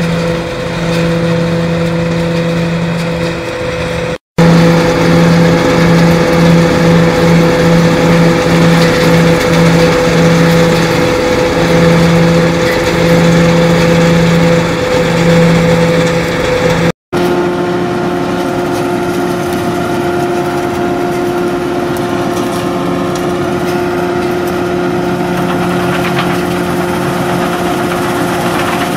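Straddle olive harvester running as it passes over an olive hedgerow, its engine and shaking head making a loud, steady hum. The sound cuts out abruptly twice, about four and seventeen seconds in. In the louder middle part the low hum pulses on and off, and after the second cut it settles at a different pitch.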